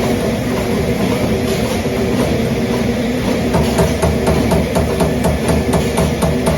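Trumpf Trumatic 2010R CNC turret punch running under power, its drive giving a steady hum. About halfway in, a rapid, even train of punch strokes starts, around four or five hits a second.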